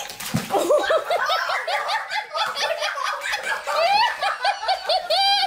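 High-pitched laughter in a rapid, unbroken string of short 'ha-ha' bursts, about four to five a second, rising sharply near the end.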